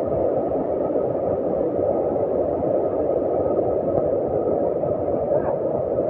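Steady rushing noise of a large waterfall and the river below it, a dense low roar-like hiss that does not change.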